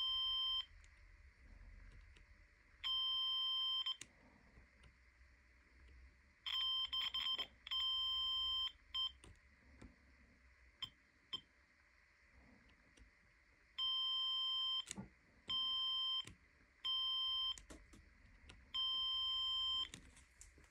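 Multimeter continuity buzzer beeping as the test probes touch the diodes on a TV panel board, about nine beeps in all, some short and some held for a second or two. The beep marks a short circuit across the diodes, the fault behind the black screen.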